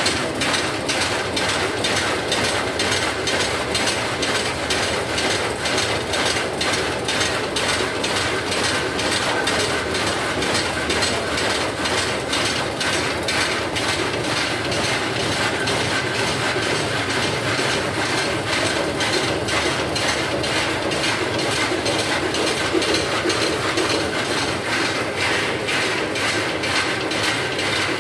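Power loom running at speed: a loud, steady, rapid mechanical clatter, one sharp stroke after another at an even beat as the loom weaves pick after pick.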